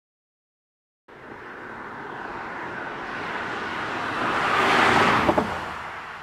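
A van driving past: after about a second of silence its road and engine noise starts, grows steadily as it approaches, peaks about five seconds in as it goes by, then fades as it moves away.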